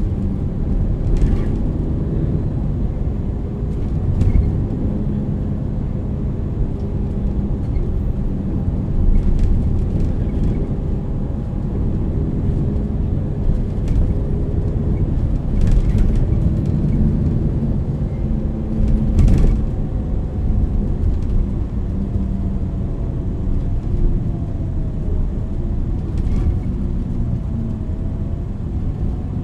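MAN NL 323 city bus with a ZF EcoLife automatic gearbox driving between stops: a steady low rumble from the diesel engine and running gear, with a whine that glides up and down in the second half. Several short knocks or rattles come at scattered moments.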